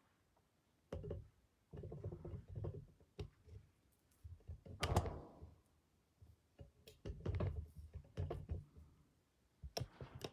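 Irregular knocks and thumps in a small room, starting about a second in and recurring in short clusters, the loudest about halfway through.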